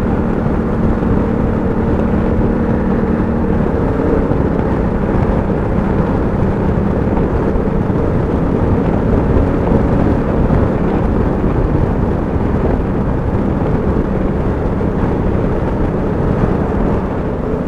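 Honda Africa Twin DCT's parallel-twin engine running at road speed under heavy wind and road noise. The engine note changes a couple of times as the dual-clutch gearbox shifts on its own, without a clutch pull.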